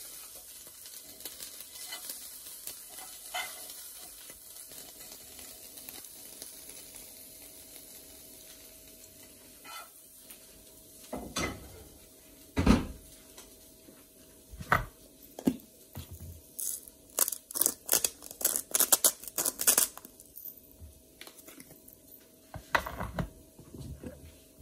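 Kitchen sounds: faint sizzling from a frying pan, then dishes and utensils clinking and knocking. There is one loud knock about halfway through and a run of quick clatters a few seconds later, over a faint steady hum.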